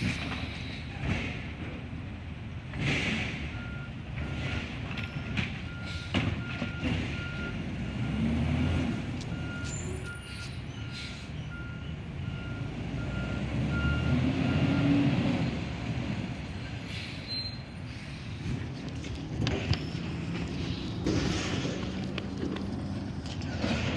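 Garbage truck backing up: its reversing alarm beeps about twice a second for around ten seconds over the running engine, which revs up twice.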